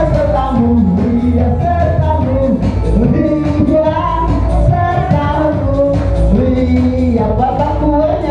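A song with a singing voice over steady backing music.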